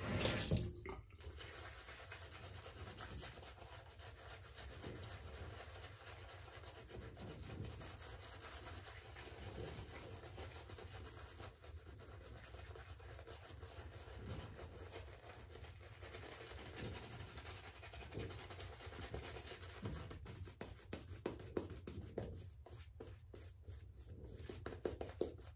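Shaving brush rubbing Proraso Green lather over the face and neck, a faint bristly swishing that comes in quicker strokes over the last few seconds.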